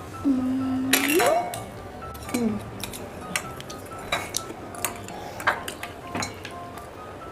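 A spoon clinking and scraping against bowls and plates, with sharp clinks scattered throughout over background music. Near the start a hummed voice sound holds one low note and then rises in pitch, and a shorter one falls about two and a half seconds in.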